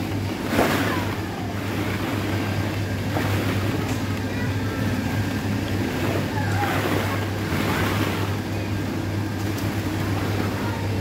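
Steady low hum and rushing air-like noise of an indoor ball-pit playground, constant throughout, with a few brief swishes.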